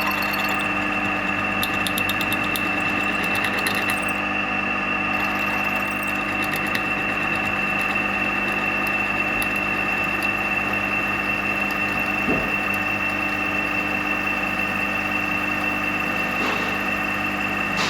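Metalworking machine tool running steadily with an even, high whine, with spells of light ticking from the cutting during the first few seconds.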